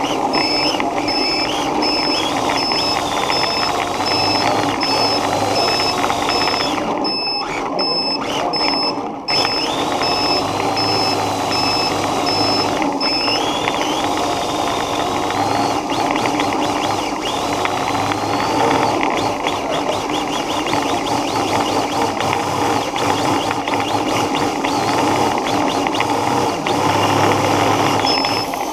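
Electric radio-controlled car running across a hard floor, its motor and gears whining up and down in pitch over steady tyre and drive noise. A high-pitched beep repeats rapidly through the first half and again near the end.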